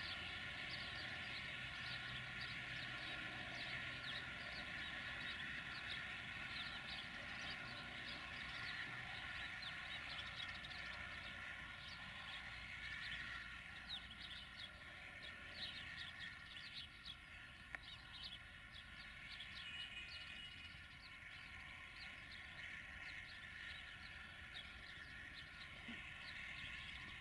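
Many quick bird chirps over the faint, steady sound of a distant diesel-electric locomotive running as it approaches, a CFR 060-DA with a Sulzer engine.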